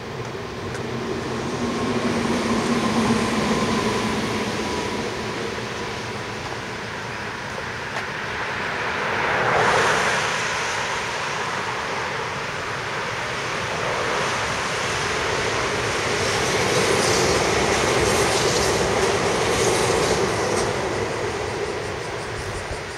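Electric train on the Meitetsu Nagoya Main Line passing along the elevated concrete viaduct. Its rolling wheel rumble swells and fades, loudest about ten seconds in and again near the end.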